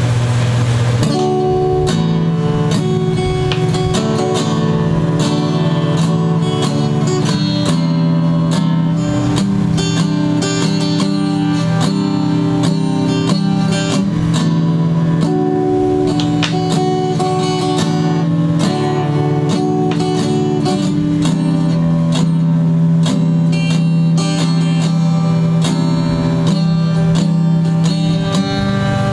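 Acoustic guitar music, picked and strummed in a steady rhythm, starting about a second in after a brief rushing noise.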